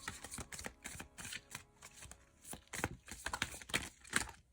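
Tarot cards being shuffled and handled by hand: a quick, irregular run of dry card clicks and slaps, busiest about three to four seconds in.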